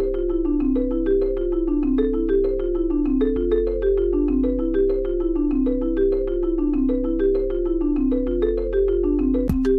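Background music: a quick, repeating pattern of bright notes over a steady low bass.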